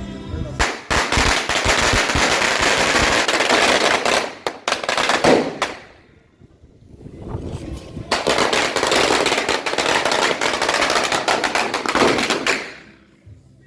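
Two long strings of firecrackers going off in rapid crackling runs. The first lasts about five seconds and dies away. The second starts about eight seconds in and stops shortly before the end.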